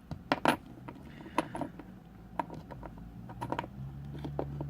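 Small metal parts of a Corbin lock cylinder clicking and tapping as they are handled, about a dozen sharp separate clicks, some in quick pairs. A low steady hum comes in about three seconds in.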